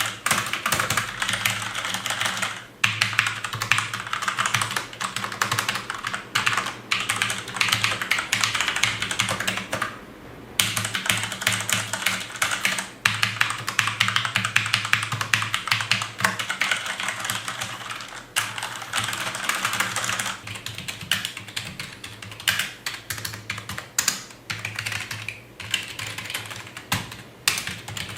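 Fast, continuous typing on computer keyboards: a Cherry MX Board 3.0 mechanical keyboard and a Perixx PX-1100 membrane keyboard, typed on in turn to compare how they sound. There are brief pauses about three seconds in and about ten seconds in.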